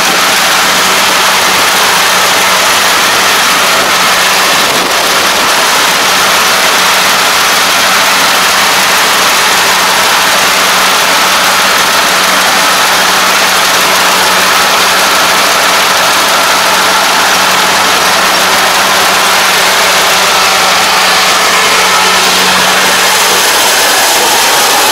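Kubota ARN460 rice combine harvester running at a steady working pace while cutting rice and crawling on its tracks through a waterlogged paddy. Its diesel engine and machinery give an even drone with a constant low hum.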